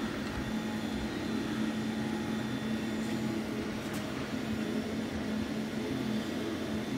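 Steady background hum, like that of a fan or air-conditioning unit. About four seconds in there is one faint click as the small diecast model's hinged engine cover is handled.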